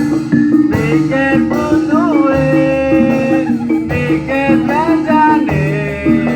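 Music: a singing voice with a wavering melody over a repeating pattern of low notes.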